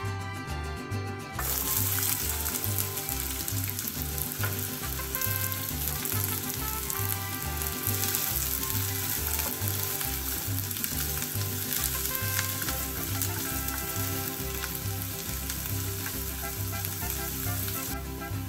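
Diced onions sizzling in hot oil in a frying pan as they are stirred with a wooden spatula. The sizzling starts about a second and a half in and stops just before the end, over a quiet music bed with a steady low beat.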